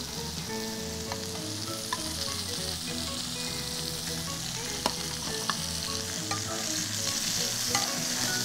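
Food sizzling in frying pans on the stove, a steady hiss, with a few light clinks of a metal serving spoon against the pan and plate.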